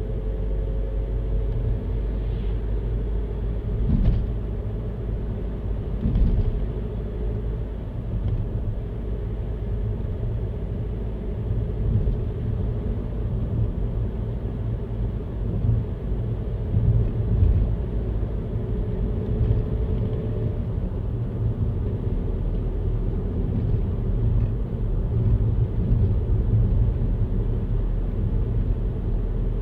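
Steady low rumble of a car driving, with a faint steady whine above the rumble and a few brief louder swells.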